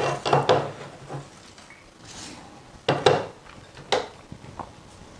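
Hands handling a sheet-metal car-radio box and its cables, rubbing and rustling at first. A couple of sharp clicks and knocks come about three and four seconds in.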